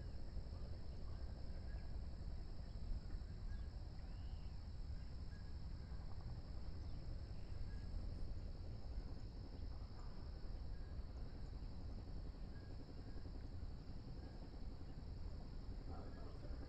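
Insects chirring in a steady, high, even drone over a low continuous rumble, with a few faint chirps.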